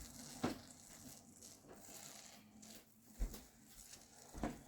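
Faint handling noises with a few soft, short knocks as a bottle is picked up and moved.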